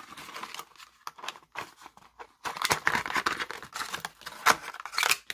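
A thin plastic packaging tray and card insert being handled: irregular rustling, crinkling and clicks, busier in the second half, with a sharper click about four and a half seconds in.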